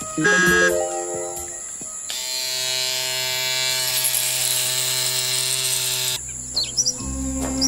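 Electric hair clippers buzzing steadily as they shear the fur of a plush monkey toy. The buzz starts about two seconds in and cuts off a little before the end, after a short descending run of musical notes.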